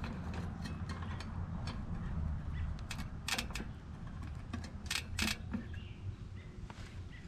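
Bicycle chain being handled, its metal links clicking and clinking irregularly, with a few sharper clinks about three and five seconds in, over a steady low hum.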